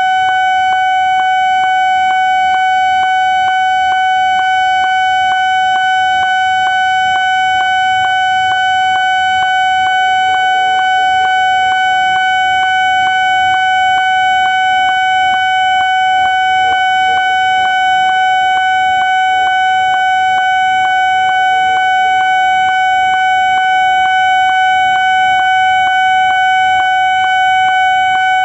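Railway level-crossing warning alarm ringing loudly and steadily: one electronic bell tone struck about twice a second without a break, the signal that a train is approaching the crossing.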